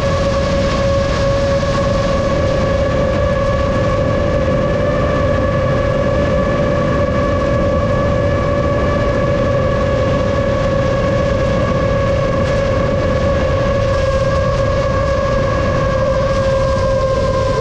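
Motors of a 7-inch FPV quadcopter whining at a nearly steady pitch over loud rushing noise from the propellers and air, the pitch sagging slightly near the end.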